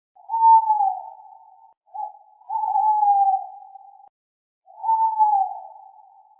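Owl hooting: three long hoots, each starting a little higher and sliding slightly down in pitch, with a short hoot between the first two.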